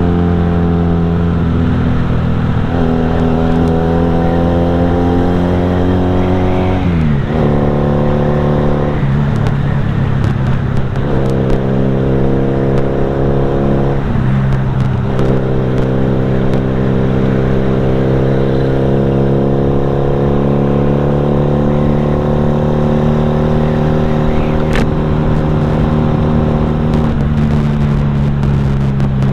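Motorcycle engine with an aftermarket racing exhaust, heard while riding: a loud, steady exhaust note whose pitch climbs slowly, then breaks off and picks up again several times as the rider eases off and opens the throttle or changes gear.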